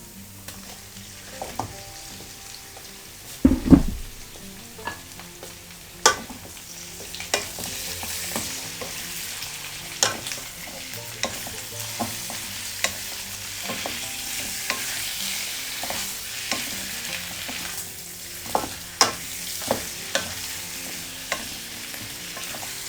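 Chicken pieces and onion frying and sizzling in hot oil in a pot, stirred with a spoon that clicks and knocks against the pot. There is a heavy thump about three and a half seconds in, and the sizzle thickens from about seven seconds in.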